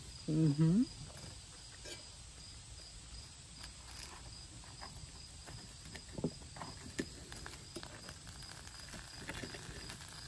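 Knife and fork clicking and scraping against a calzone in a cast iron pan, scattered faint clicks, over a steady pulsing insect chirp. A short voiced sound comes about half a second in.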